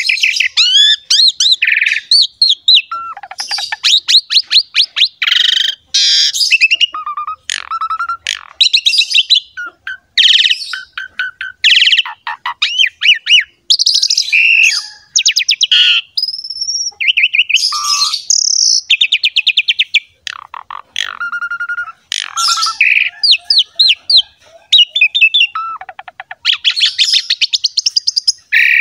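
Asian pied starling (jalak suren) singing non-stop: a fast, varied stream of whistles, rapid chattering trills and harsh notes with only brief gaps.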